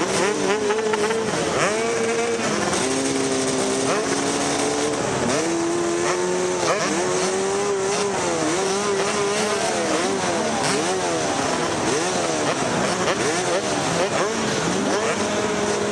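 Four-stroke dirt-bike engine under race riding, revving up and dropping back again and again as the rider works the throttle and gears, about once a second in the second half, over steady wind and riding noise.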